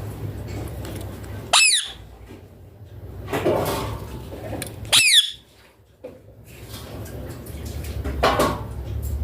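Ringneck parrot giving two short, shrill screeches, about three and a half seconds apart, each sweeping sharply up in pitch and dropping back.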